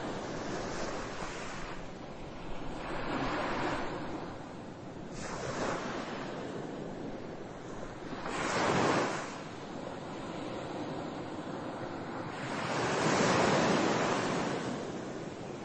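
Ocean surf: waves washing in, a swell of noise every few seconds, with the two strongest surges in the second half.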